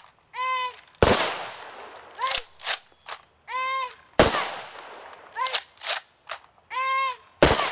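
Rifle firing party firing volleys in a salute: three volleys about three seconds apart, each with a long echoing tail. Before each volley comes a drawn-out shouted command, and sharp clicks of the rifles being handled fall between the volleys.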